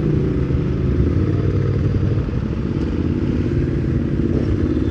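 Ducati Hypermotard 698 Mono's single-cylinder engine running at low speed, its note steady.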